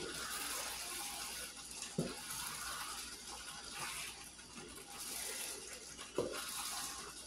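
Ground beef sizzling and bubbling in a frying pan while a plastic slotted spatula stirs it, with two knocks of the spatula against the pan, about two seconds in and again about six seconds in.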